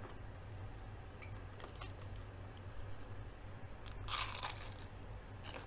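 A single loud crunch as a crisp deep-fried onion ring is bitten into, about four seconds in, after a few soft clicks of the food being handled.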